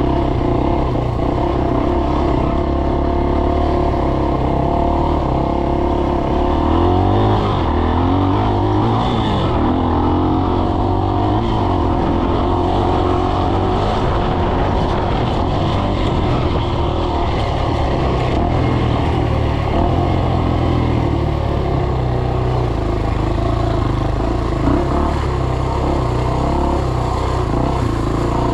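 Dirt bike engine running steadily under way. Its pitch rises and falls a few times about a quarter to a third of the way in as the throttle is worked.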